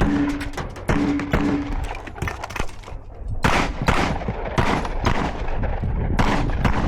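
Rapid strings of gunshots during an IDPA course of fire: sharp cracks in quick succession, the loudest ones in the second half. A steady low tone sounds twice in the first two seconds.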